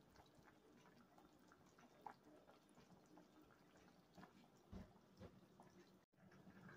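Near silence: faint room tone with a few scattered soft ticks.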